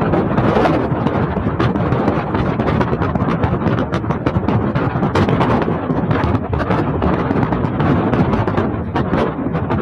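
Wind rushing and buffeting on the microphone at the open side window of a vehicle driving at speed, over road noise.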